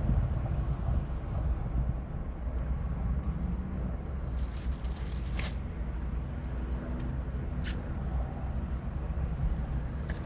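A steady low rumble, with a few short rustles and clicks about four and a half seconds in and again near eight seconds.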